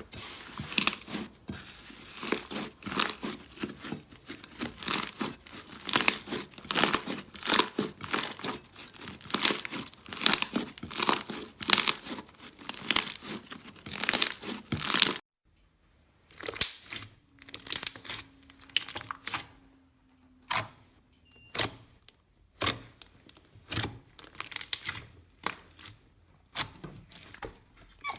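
Slime being squeezed and pressed by hand, giving a dense run of crackling and popping. After an abrupt cut about halfway through, it turns to sparser, separate crackles and pops.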